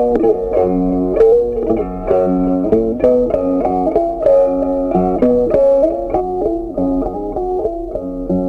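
Background music: a plucked guitar tune, with a note struck every fraction of a second.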